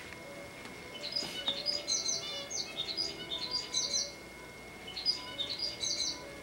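A bird chirping and warbling in three quick runs of high notes: about a second in, around three seconds, and about five seconds in.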